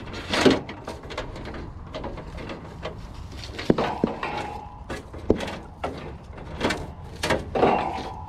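Scattered knocks, clicks and scraping as fan motor wires are fed through an outdoor condenser unit's grille and its metal fan shroud is handled, with a short squeaking scrape about four seconds in and another near the end.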